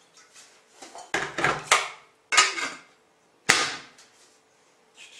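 Kitchenware clattering at a sink: a metal kettle and crockery knocked and set down, with four sharp clanks in the first three and a half seconds and lighter knocks between them.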